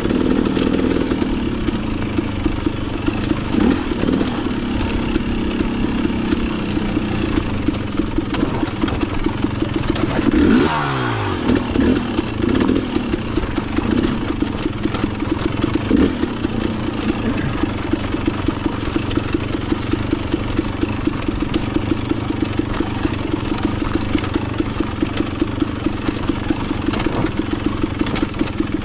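Off-road motorcycle engine running steadily under way. Its pitch falls sharply about ten seconds in as the throttle is rolled off, then it runs on steadily again.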